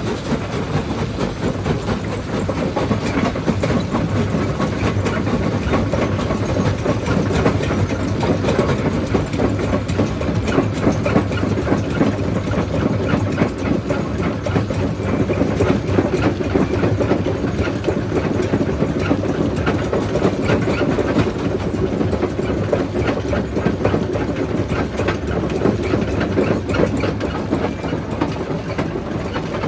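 Primary jaw crusher at a quarry running steadily: a continuous low machine drone with dense clattering and grinding of rock being broken in the jaws.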